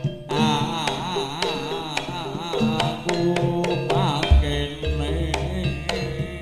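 Live East Javanese jaranan music: hand-drum and percussion strikes under a wavering melody line with strong vibrato. A deep low tone comes in about four seconds in and is held.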